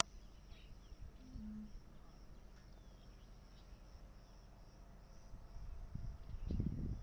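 Faint outdoor evening ambience with a steady, high-pitched chirping of insects. Low rumbling noise on the microphone builds in the last second and a half.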